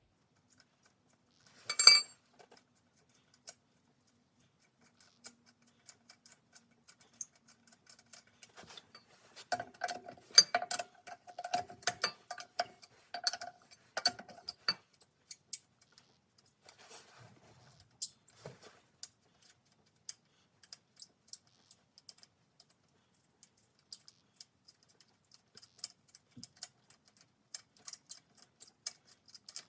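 Steel tire iron clinking and clicking on the wheel's lug nuts as the loosened nuts are turned off. There is a loud metal clank about two seconds in, a dense run of ringing clinks from about ten to fifteen seconds in, then scattered light ticks.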